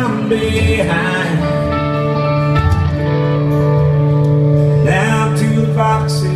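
Live band playing an instrumental intro: strummed guitars ringing over a steady bass note, with fresh strums right at the start and again about five seconds in.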